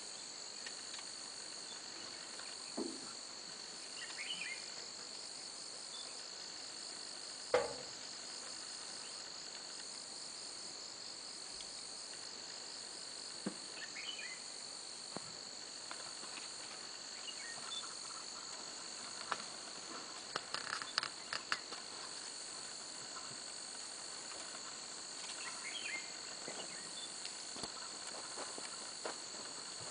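Steady high-pitched insect chorus of crickets or cicadas in dry forest, with a few brief chirps now and then and a single sharp knock about seven and a half seconds in.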